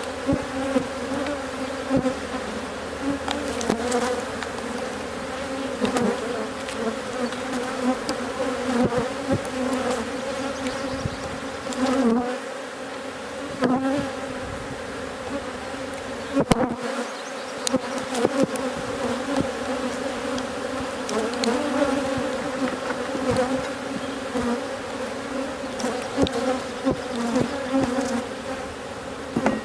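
Honey bees buzzing steadily in a mass around an open hive, a hum that wavers in pitch, with occasional light knocks from the hive frames being handled.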